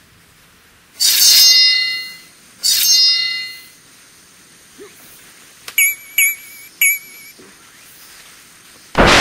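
Sword-clash sound effects. Two loud metallic clangs each ring out for about a second, three short ringing clinks follow a few seconds later, and a short sharp hit comes just before the end.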